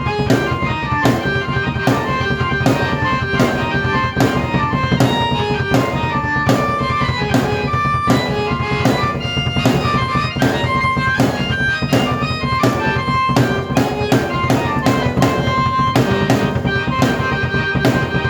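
Drum kit and keyboard played together by one player: a steady drum beat under a keyboard melody of held notes.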